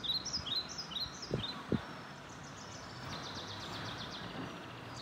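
Small songbirds chirping over steady outdoor background noise: a run of short falling chirps in the first second and a half, then a fast trill about three to four seconds in.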